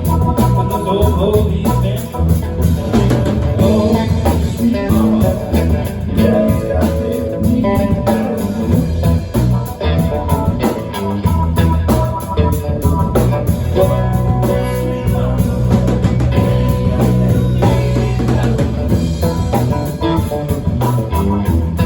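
Live band playing a blues song in an instrumental passage: guitar over a drum kit.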